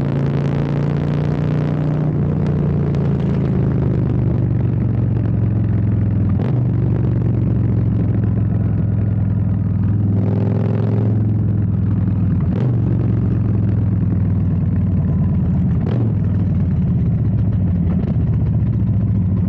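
Harley-Davidson Street Bob's V-twin engine running through Bassani sweeper exhaust with a Stage 2 upgrade. It idles steadily, with a throttle blip near the start and another about ten seconds in.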